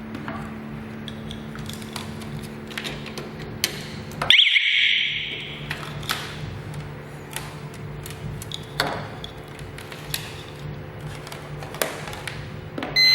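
A GSM home alarm control panel (DY-G10A) being handled, with light clicks and taps over a steady electrical hum. The panel gives a short electronic beep about four seconds in, and another begins right at the end.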